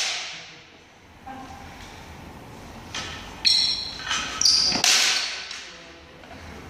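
Bamboo shinai striking each other and a round buckler during sparring in a large hall: a run of sharp clacks and knocks about three to five seconds in, a couple of them leaving a short metallic ring, the loudest hit near the end of the run.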